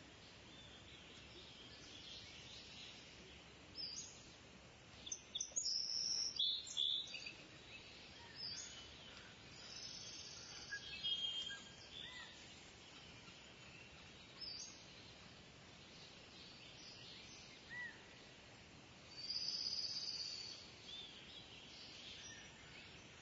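Wild birds calling in short high-pitched chirps and whistles, coming in scattered bursts a few seconds apart over faint outdoor background noise.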